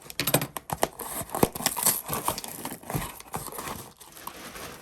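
Plastic packaging crinkling and rustling as it is handled and opened, with many irregular sharp crackles.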